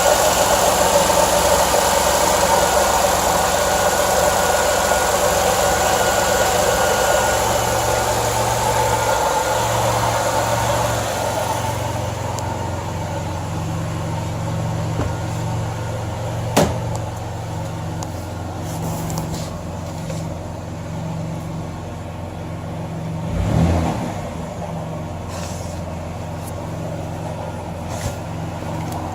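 Car engine idling steadily, the car whose new, unexplained noise is in question. About halfway through there is one sharp click, and later a brief swell in level.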